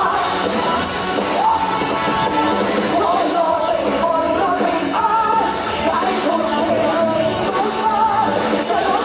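Live pop-rock band (drums, electric guitar, keyboards) playing a song, with a woman singing the lead vocal into a handheld microphone through a loud PA.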